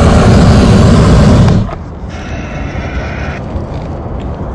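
Hot air balloon's propane burner firing overhead with a loud, steady roar, which stops abruptly about a second and a half in, leaving a much quieter low rumble.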